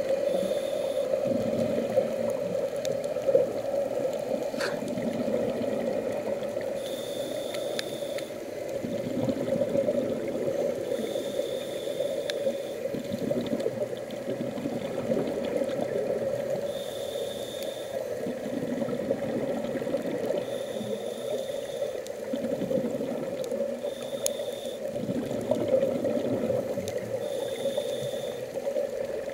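Underwater sound picked up by a camera on a coral reef: a steady hum over rushing water noise that swells and fades, with a faint high tone lasting about a second that comes back every few seconds.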